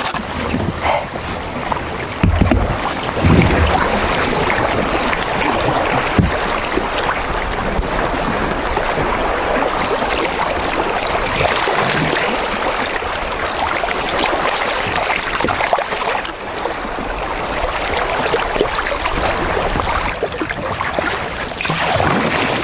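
Shallow river water rushing past a kayak, a steady hiss, with a few dull knocks in the first several seconds.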